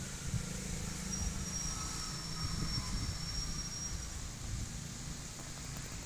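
Outdoor background noise: a steady low rumble, with a thin high whistle held for about three seconds in the middle.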